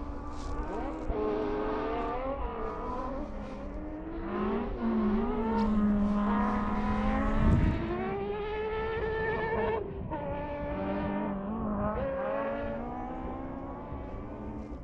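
Rally car engine heard from onboard, revving up through the gears and dropping back on lifts and gear changes, over a steady rumble of tyre and road noise.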